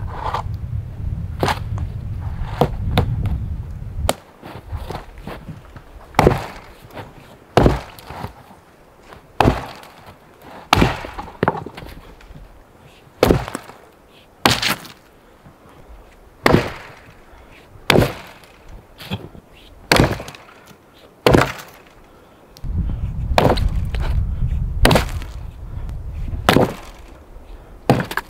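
Axe chopping into a dead log: about a dozen sharp wooden strikes, roughly one every second and a half. A low rumble runs under the first few seconds and comes back near the end.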